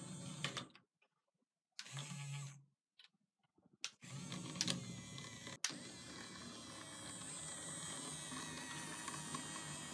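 Small electric motors of a radio-controlled model forklift whirring. The whirring comes in short bursts broken by sudden silences, then runs on steadily through the last several seconds.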